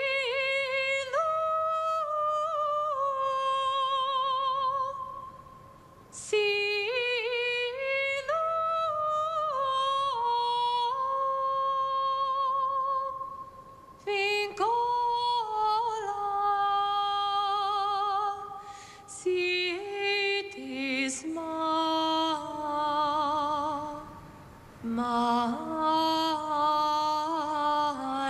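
A woman singing a slow, mournful melody with almost no accompaniment. The notes are long and held with vibrato, sung in phrases separated by short breaths.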